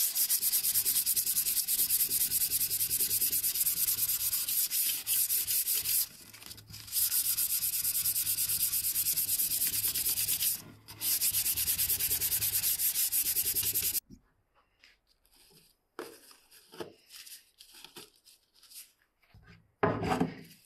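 Hand sanding of a wooden axe handle with a yellow abrasive pad, in fast back-and-forth strokes that pause briefly twice and stop about 14 seconds in. After that come only faint handling sounds and one short louder rustle near the end.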